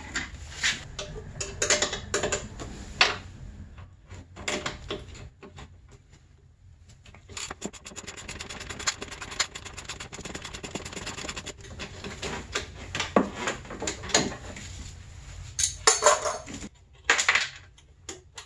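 Metal hand tools clinking and knocking on the snowmobile's muffler springs and bolt as the muffler is taken off, with a few seconds of rapid, even clicking in the middle.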